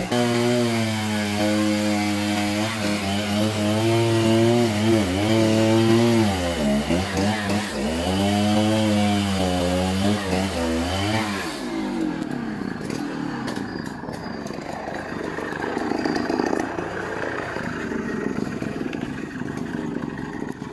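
A two-stroke chainsaw engine running at low speed, its pitch wavering and dipping, until it falls away about eleven seconds in. After that a rougher, lower engine rumble carries on.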